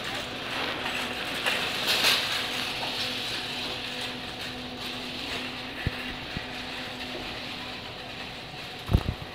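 Metal shopping cart rattling as it is pushed along a hard store floor, with a steady low hum underneath. A few dull thumps come through, the loudest near the end.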